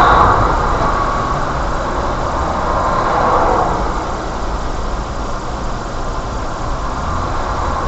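Steady low rumble of a car idling in traffic, heard from the dashcam inside the car, with the hiss of other vehicles moving nearby.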